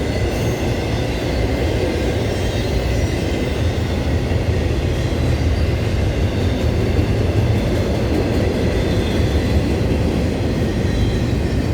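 Norfolk Southern freight train rolling past, a steady loud rumble of wheels on rail.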